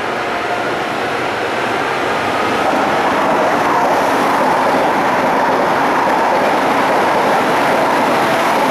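Trenitalia E402A electric locomotive pulling an Intercity train away, its motors and blowers running under a faint steady whine. It grows louder about three seconds in as the locomotive passes close, then the coaches roll by on the rails.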